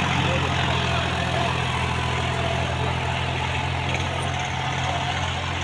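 Farmtrac tractor's diesel engine running steadily under load as it drags a cultivator through the soil.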